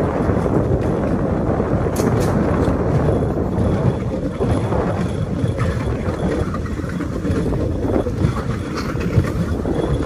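Bamboo train (norry) running along the rails: a steady rumble with wind buffeting the microphone and a few sharp clacks.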